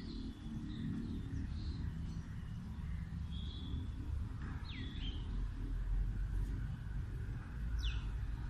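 Birds chirping: scattered short calls, a few of them quick sweeping whistles, over a steady low rumble.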